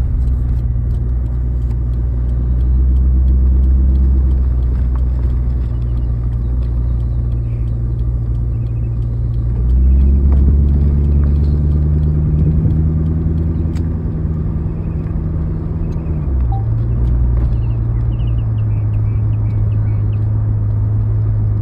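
A car's engine and exhaust drone, heard from inside the cabin while driving. It is a deep, steady note that rises about ten seconds in and drops back down about six seconds later as the car's speed or gear changes.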